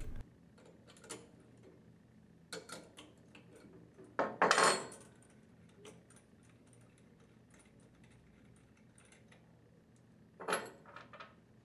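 Small metal parts and a hand wrench clinking as the packing gland nuts come off a cast-iron gear pump and are set down on a wooden bench. Sparse light clicks, a longer, louder clatter about four seconds in, and a few clinks near the end.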